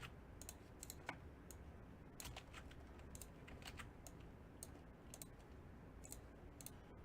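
Faint, irregular clicking of a computer keyboard being typed on, with a few mouse clicks, a couple of keystrokes a second.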